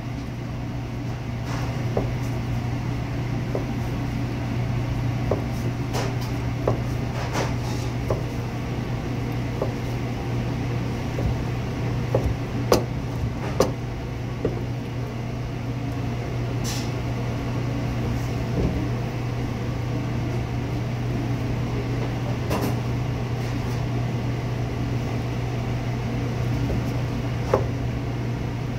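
Steady low machine hum, with irregular sharp knocks and clicks from a knife slicing cooked pork loin and striking the cutting board.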